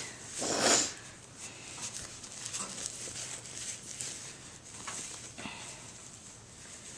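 Cotton baby clothes rustling as a top is pulled over a vinyl reborn doll and adjusted by hand, with one louder swish of noise about half a second in and faint handling clicks after.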